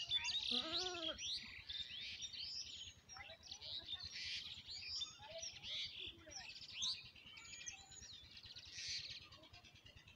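Many small birds chirping and twittering together in a busy chorus, with a short wavering lower call about half a second in.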